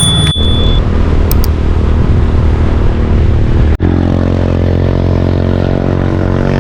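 Motor vehicle engine running steadily on the road, in a few short clips that cut off abruptly from one to the next; in the last clip the engine note is a clear, steady hum.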